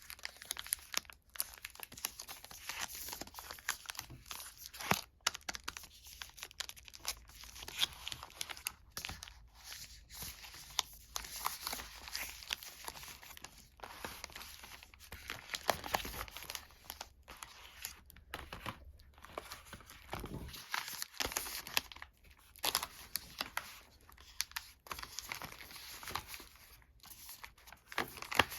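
Sweet and chocolate wrappers being crinkled and torn open: an irregular run of crackling and rustling with sharp tears and brief pauses.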